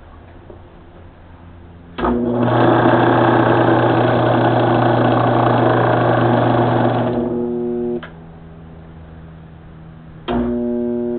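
Craftsman Dunlop 109 metal lathe's headstock running under power for about five seconds, a steady hum with a loud clatter of gears and belt, then winding down and stopping. It starts again for about a second near the end and cuts out. The spindle is stalling, which the owner puts down to the reassembled headstock being a little too tight.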